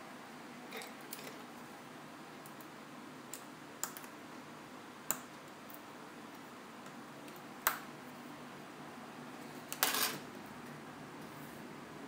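Light, sparse clicks and taps of small repair tools and parts on a phone being worked on, about half a dozen single clicks and a short rattle of clicks about ten seconds in, over a faint steady hiss.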